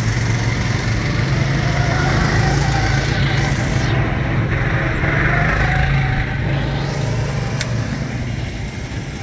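Several go-kart engines running as karts circle the track, a steady low drone that swells twice as karts pass close.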